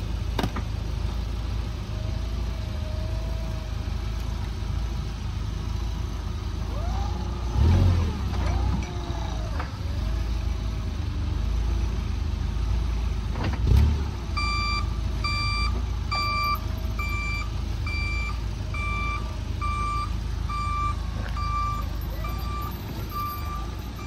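Yale forklift's engine running while it handles a pallet, with two loud thumps about 8 and 14 seconds in. Its reversing alarm then sounds about halfway through, beeping steadily at about one and a half beeps a second as the forklift backs up with the load.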